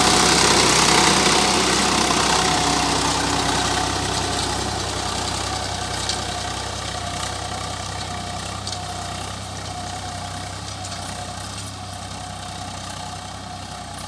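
Agri King tractor's engine running steadily, growing gradually fainter.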